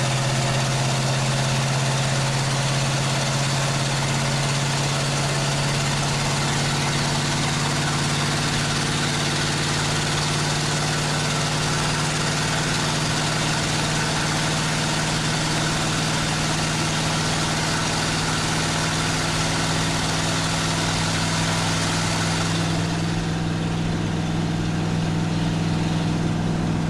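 Straight-piped pickup engine running steadily with a low, even hum. Near the end its pitch rises a little and the hiss above it drops.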